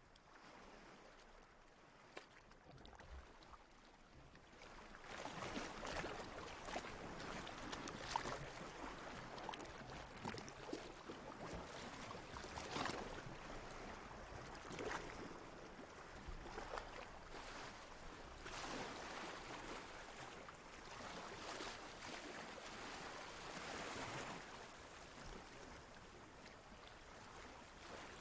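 Ocean water washing and lapping, swelling and fading in repeated surges, quieter for the first few seconds.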